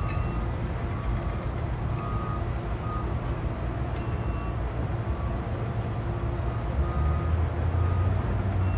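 Steady low rumble of heavy demolition machinery, swelling near the end, with a distant reversing alarm beeping roughly once a second.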